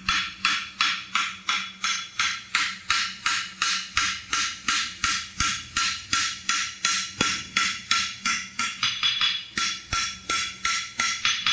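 Farrier's hand hammer striking red-hot steel bar stock on a Scotty Victory Boy anvil, in a steady rhythm of about three ringing blows a second, knife-blading the branch of a sidebone horseshoe.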